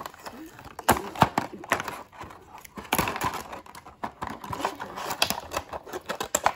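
Handling noise of a Lego set being unpacked: crinkling plastic and irregular sharp clicks of small hard pieces.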